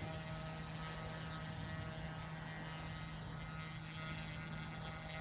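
OMPhobby M2 Evo electric RC helicopter in flight, its rotors and motor giving a steady hum at constant pitch, set at its lowest head speed.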